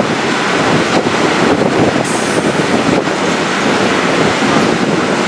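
Train running, heard from aboard a vintage passenger coach: a steady rush of wheel and track noise mixed with wind on the microphone, with a brief higher hiss about two seconds in.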